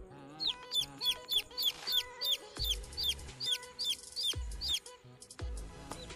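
Newly hatched kampung chicken chicks peeping: a fast run of short, high, downward-sliding peeps, about four a second, that breaks off near the end.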